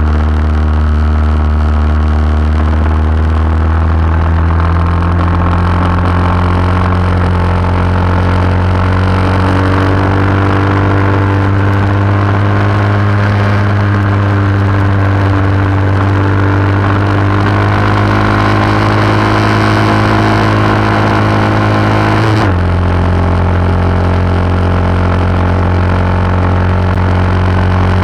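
Vintage lightweight superbike racing motorcycle engine, recorded onboard, pulling hard under load with the revs climbing slowly through a long corner. About 22 seconds in, one quick upshift drops the pitch sharply before the engine pulls on again.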